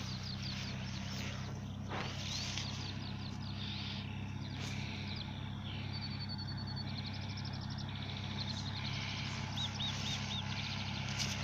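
A '309' tractor's engine running at a steady speed, with birds chirping and trilling over it throughout.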